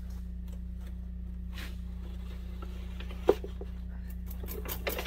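A small metal part from the motorcycle's rear wheel hub drops onto the shop floor with one sharp clack about three seconds in, followed by a few faint clicks near the end, over a steady low hum.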